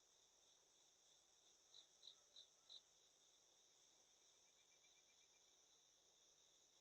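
Faint insect chorus: a steady high buzz, with four louder chirps in quick succession about two seconds in and a faint rapid trill near the middle.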